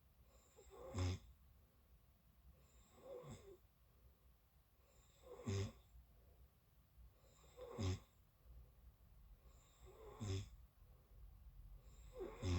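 A sleeping person snoring: short, regular snores about every two and a quarter seconds, six in all, each with a low rattling pitch.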